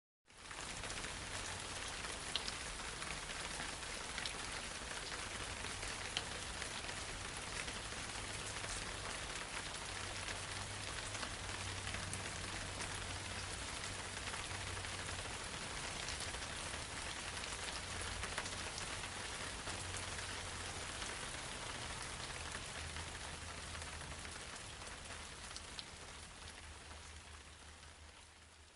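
Fine, light rain falling steadily: a dense even patter with a few single drops standing out now and then. It fades out over the last few seconds.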